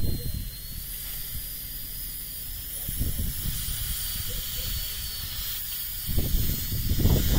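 Wind on the microphone: a steady hiss with irregular low rumbling gusts, heaviest over the last second and a half.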